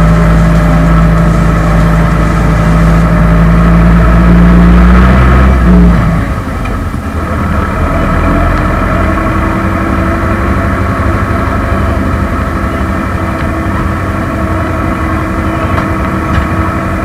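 Zetor 6340 tractor's diesel engine heard from inside the cab, running steadily at high revs, then about six seconds in briefly revving up before dropping to low revs with a rougher, rattling sound.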